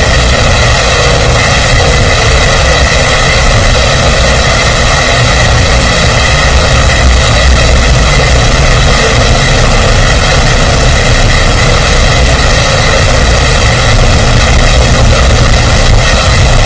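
Loud, steady mechanical drone with a constant low rumble and several steady hum tones in it, unchanging throughout.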